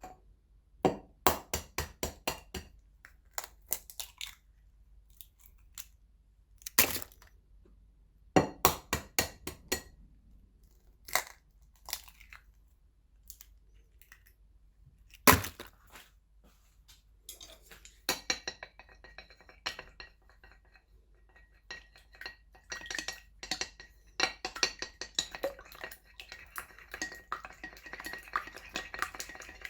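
An egg tapped against the rim of a bowl in short series of sharp knocks and cracked open, the loudest crack about 15 seconds in. From about 17 seconds a utensil stirs and beats it with quick, continuous clinking against the ringing bowl.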